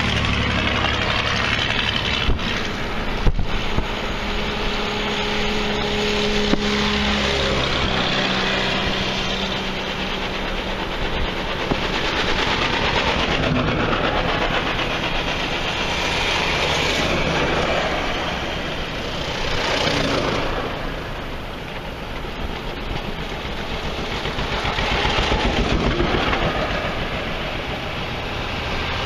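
Vintage farm tractors in a parade line driving by one after another. A close tractor's engine drone falls slightly in pitch as it passes during the first several seconds. The engine noise then swells and fades every few seconds as each following tractor goes by.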